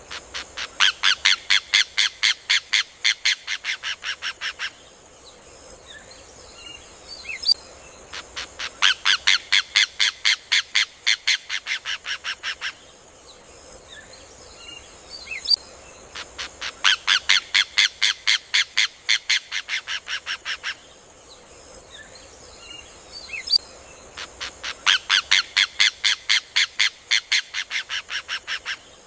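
Rufous hornero (João-de-barro) singing: a rapid series of loud, evenly spaced notes lasting about four seconds, growing a little softer toward the end. The song comes four times, about every eight seconds.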